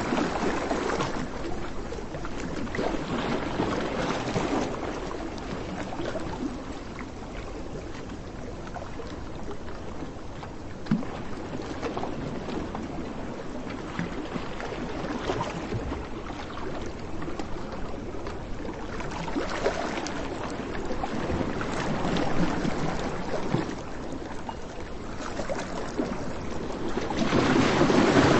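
Sea surf washing onto a beach, the rush of water swelling and fading every few seconds and growing louder near the end.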